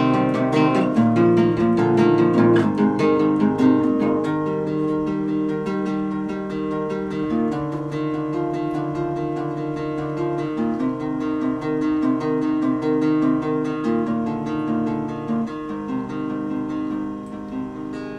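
Acoustic guitar music, strummed and picked, gradually getting quieter toward the end.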